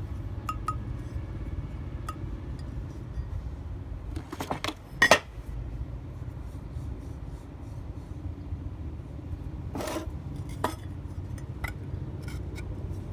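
Scattered clinks and knocks of hard objects being handled, loudest about five seconds in, over a low steady hum.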